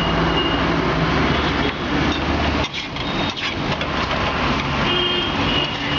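Steady street traffic noise, with a vehicle engine running under an even hiss.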